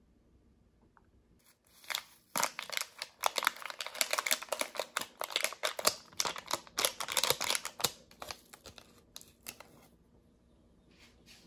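Crinkling and rustling of a plastic instant-ramen soup-powder sachet, opened and shaken out over a small dish. It starts about two seconds in, goes on busily for about six seconds, then dies away to a few faint rustles.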